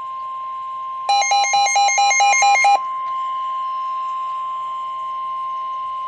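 Midland weather alert radio sounding the NOAA Weather Radio 1050 Hz warning alarm tone, a loud steady single tone that heralds a warning message. About a second in, a rapid beeping of about five beeps a second sounds over it for under two seconds.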